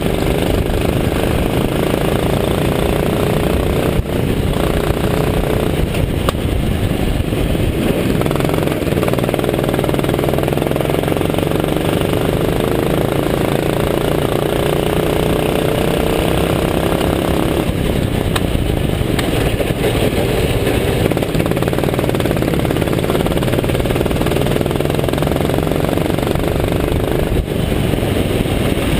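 Go-kart's small engine heard from the kart itself at racing pace, its pitch climbing steadily on the straights and dropping back sharply a few times as the throttle is lifted for corners.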